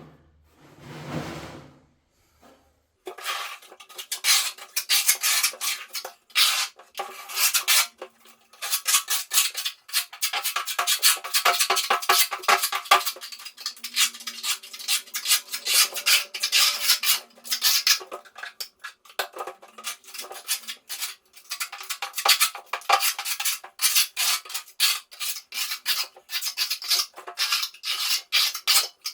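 Metal spatula spreading plaster on a wall: a quick run of scraping strokes, starting about three seconds in and continuing with brief pauses.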